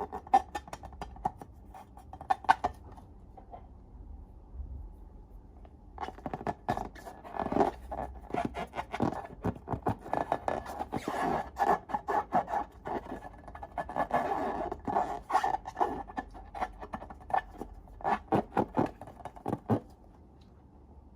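Slime being worked by hand in a slime-making session: sticky crackling clicks and scrapes, pausing briefly about three seconds in, then running on densely until near the end.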